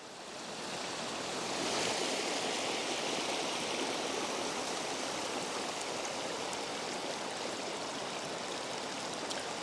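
Floodwater from an overflowing creek rushing steadily, growing louder over the first couple of seconds and then holding steady.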